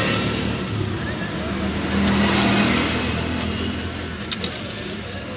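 Car engine running steadily, swelling in level twice, with two sharp clicks near the end.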